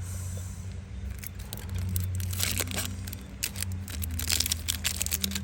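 Crinkling and clicking from packaging and small objects being handled, in a quick irregular run of short crackles that starts about one and a half seconds in, over a steady low hum.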